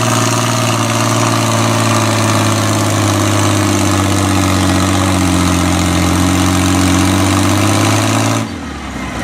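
A farm pulling tractor's engine running steadily with an even, pitched note that rises slightly about three seconds in, then stops abruptly near the end.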